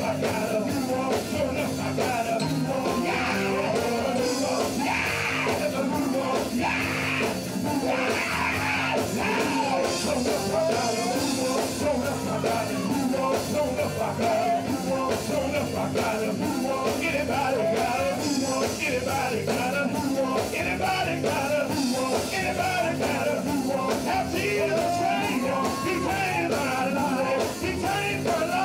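Live gospel band: a male vocal group singing, backed by electric guitar, drums and keyboard.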